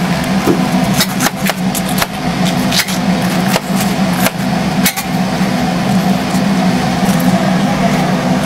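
Steel tongs clicking and scraping against a wire cooling rack and steel sheet pan as whole fried chickens are moved, over a steady low hum. The clicks come often through the first five seconds or so, then thin out.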